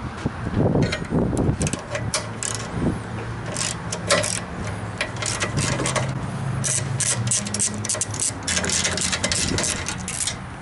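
Hand ratchet clicking in short irregular runs as bolts on a truck's hood latch assembly are loosened, with light metal clinks of the latch parts, over a steady low hum.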